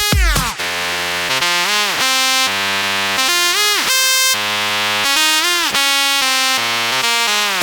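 Electronic dance music breakdown: a synthesizer lead holding long notes rich in overtones, its pitch bending up and down several times, with no kick drum or sub bass.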